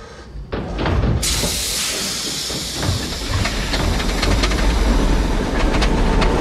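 German U-boat diesel engines starting up: a few knocks, then about a second in a sudden loud hiss, with a low rumble building under scattered clattering knocks as the engines come to life.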